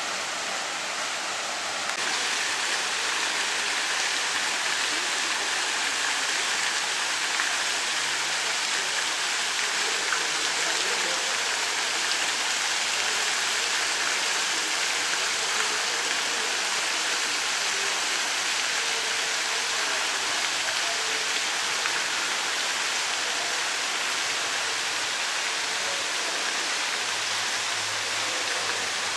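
Steady rushing water, an even splashing hiss that does not rise or fall.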